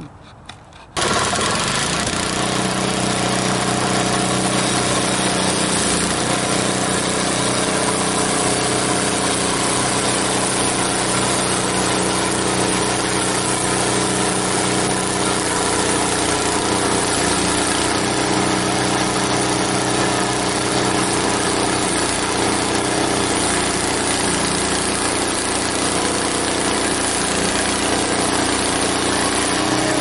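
Portable band sawmill's engine comes on abruptly about a second in and runs steadily and loudly, its blade sawing through a log on a test cut with a freshly fitted band blade.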